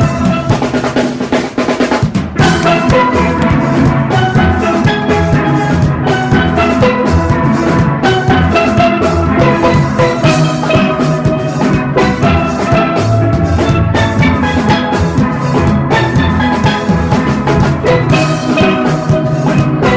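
Junior steel orchestra playing a fast panorama arrangement: many steel pans ringing out melody and chords over a drum kit and percussion.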